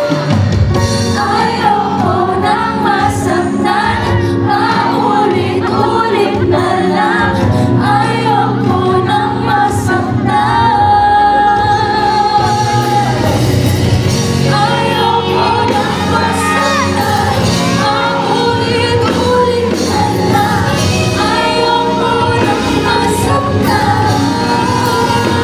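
A woman singing live with a backing band, her voice held in long, bending sung notes over steady band accompaniment.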